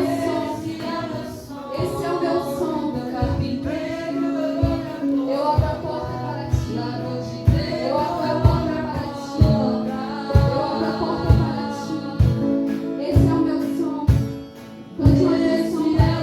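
A song with a woman singing over instruments and a steady low beat.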